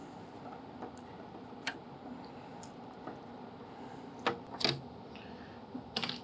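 Scattered light clicks and taps of snap ring pliers and a screwdriver working a headlight retainer spring clip off its adjuster on a plastic headlight mounting panel. The clicks come irregularly, about half a dozen, the loudest a pair about four and a half seconds in, over a faint steady hum.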